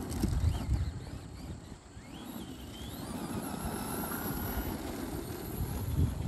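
Traxxas Bigfoot No. 1 radio-controlled monster truck driven flat out over hard dirt: its brushed electric motor gives a faint whine that rises and falls over a steady low rumble, with a brief louder thump near the end.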